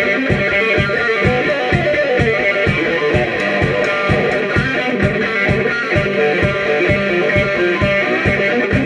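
Live blues band playing: electric guitars over bass guitar and drums, with a steady beat about three times a second.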